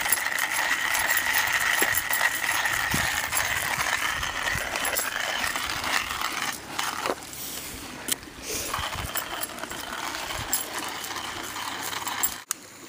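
Small metal parts clinking and rattling as camp coffee and stove gear is handled.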